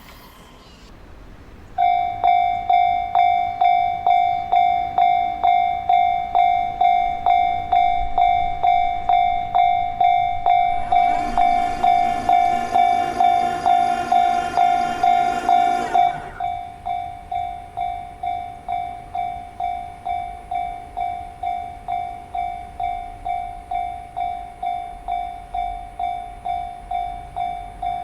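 Japanese level-crossing warning bell ringing its steady "kan-kan", about two strikes a second, starting about two seconds in and quieter in the second half. A train sounds over it for about five seconds near the middle.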